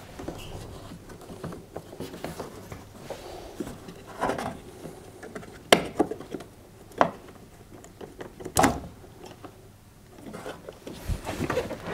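Hands unplugging the tumble dryer heater's white plastic wiring connectors: soft rubbing and handling noise, with a few sharp plastic clicks around the middle.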